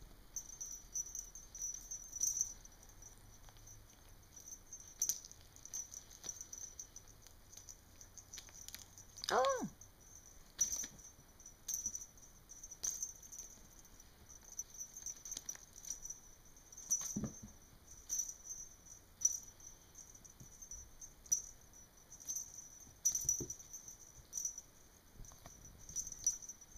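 Two kittens batting and pouncing at a feather wand toy on carpet: irregular soft pats, scuffles and light taps, with one brief falling squeak about a third of the way in.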